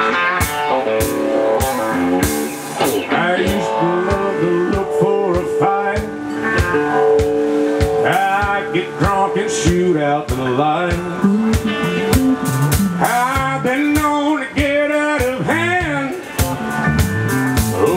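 Live blues-rock band playing an instrumental intro: electric guitar lead with bending notes over a steady drum beat.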